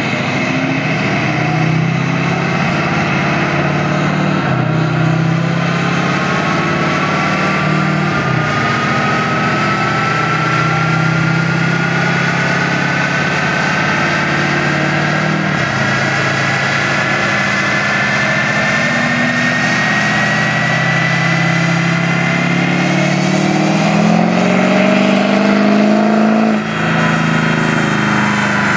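A GMC Sierra pickup's engine runs at full load on a chassis dynamometer. Its note climbs and drops back about three times as the transmission upshifts, under a whine that rises steadily with road speed. About 26 seconds in, the note falls away suddenly as the throttle is released.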